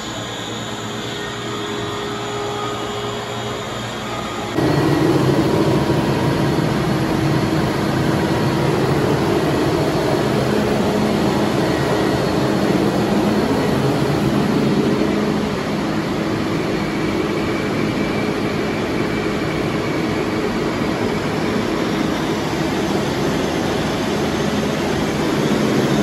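Industrial water chiller running under test, its compressors and fans making a steady machinery drone together with the diesel generator powering it. The sound jumps abruptly louder about four and a half seconds in.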